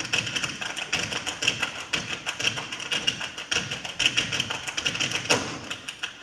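Dancers' feet tapping and stamping on a stage floor: a fast, dense, uneven run of sharp taps and heavier thuds.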